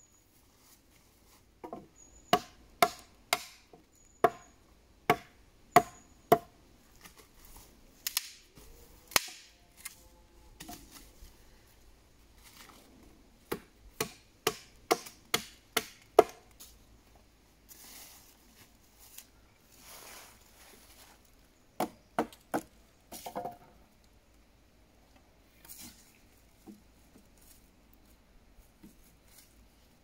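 Wood being struck or chopped with a hand tool: three runs of sharp knocks, about two a second, with softer rustling in between.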